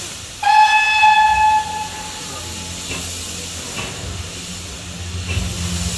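A steam locomotive's whistle gives one blast of about a second, starting half a second in, over a steady hiss of escaping steam.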